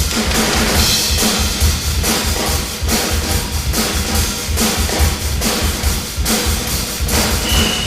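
Drums playing a fast, dense drum-and-bass beat, with heavy bass drum and snare hits.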